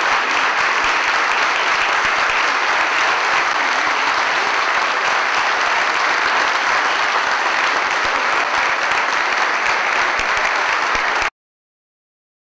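Audience applauding, a dense, steady clapping that cuts off suddenly near the end.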